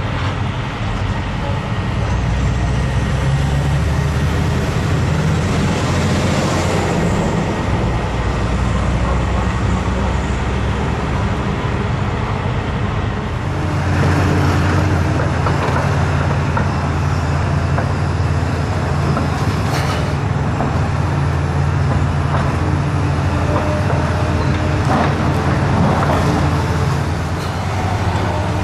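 Heavy diesel machinery running steadily, its engine note rising twice, with occasional knocks and crunches of demolition work.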